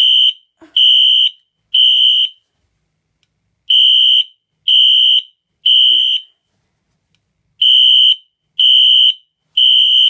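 Fire alarm horn/strobe sounding in the temporal-three evacuation pattern: three short, steady, high-pitched beeps, a pause, then three more, repeated three times. It has been set off by pulling down the pull station it is wired to, showing the wiring works.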